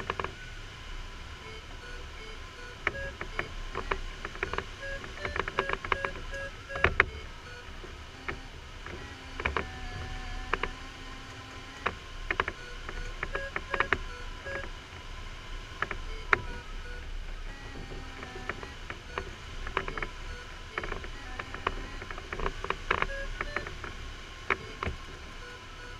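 Glider variometer beeping: runs of short, evenly spaced pitched beeps, the sign of climbing in lift, broken twice by longer steady tones that waver slightly in pitch, over steady airflow noise in the LS4 sailplane's cockpit. Scattered sharp clicks throughout.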